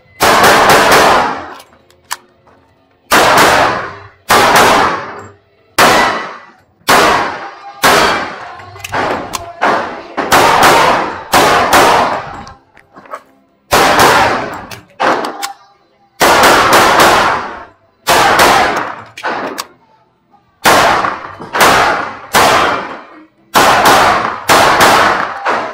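A .45 calibre 1911 pistol being fired through a practical-shooting course of fire, about two dozen shots, mostly in quick pairs on each target with short pauses between. Each shot rings out with a reverberant tail under the range's metal roof.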